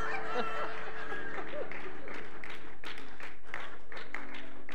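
Congregation laughing and clapping in response to a joke, a mix of scattered claps and chuckles from many people.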